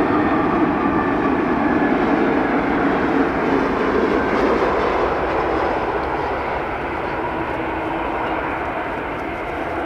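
Jet airliner's engines passing close by: a loud, steady rumble with a whine whose tones slowly fall in pitch, easing off a little after about five seconds.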